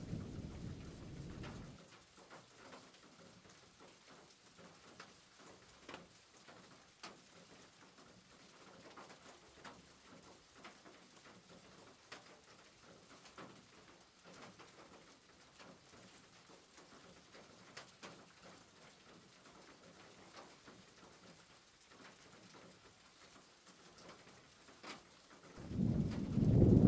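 Vegetable pakora fritters shallow-frying in hot oil: a faint sizzle with many scattered crackling pops. A louder low rumble covers the first two seconds and comes back near the end.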